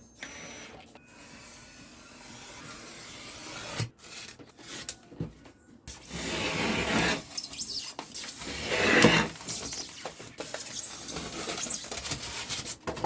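Rasping and rubbing on polystyrene foam: uneven strokes of scraping noise, faint at first, loudest in two surges around the middle.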